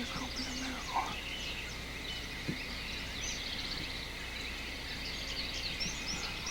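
Many songbirds chirping and singing at once, with a wild turkey calling among them, a lower call about a second in.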